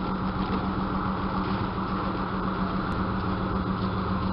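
DR1A diesel multiple unit pulling away past the platform: its diesel engine drones with a steady tone over the constant noise of the train running on the rails.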